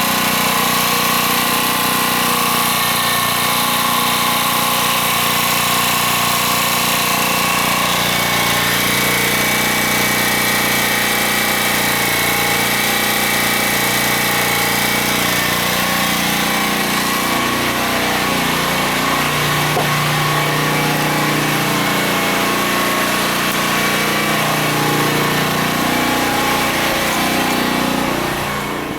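Small generator engine running steadily on wood gas from a gasifier. Its pitch wavers somewhat in the second half, and the sound drops away near the end.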